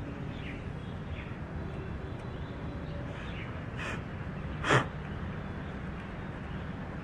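FX Crown Continuum PCP air rifle firing a single shot a little past the middle: one short, sharp report over a steady low background rumble.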